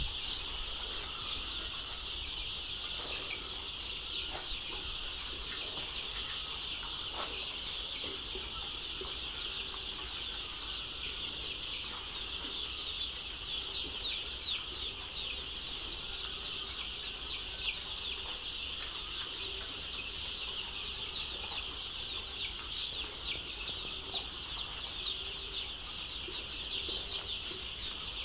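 A large flock of young layer chicks peeping all at once: a dense, unbroken chorus of high chirps, with single shrill peeps standing out more in the second half.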